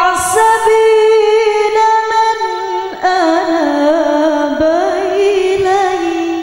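A woman's voice giving a melodic Quran recitation (tilawah) into a microphone. Long held notes, a short breath about three seconds in, then a phrase with quick wavering ornaments.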